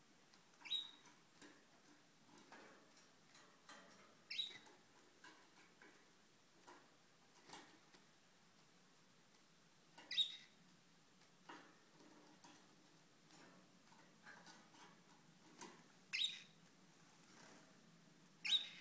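Pet canaries giving short, sharp chirps, five in all, spaced several seconds apart, with faint small clicks and rustles in the cage between them.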